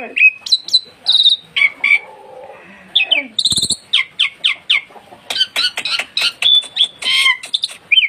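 Black-winged myna (jalak putih) calling loudly in a quick series of short whistled chirps, with a harsher call a little before the middle and a fast run of chirps in the second half.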